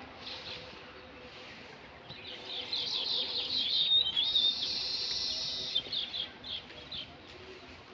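Birds singing outdoors: a rapid run of high chirps builds up about two seconds in, with a buzzy trill in the middle, and thins out near the end.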